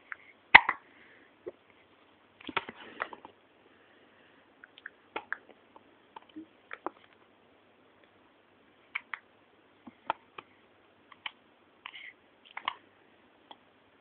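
A newborn baby hiccupping: short, sudden hics at irregular intervals, the loudest about half a second in and around three seconds, the rest fainter.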